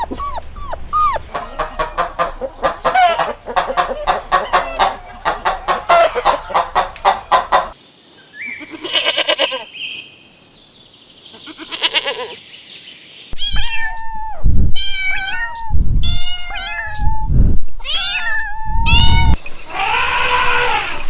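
A string of farm animal calls: a dog whimpering briefly, then many chickens clucking rapidly for several seconds, a lull, and then a series of loud separate calls from other farm animals.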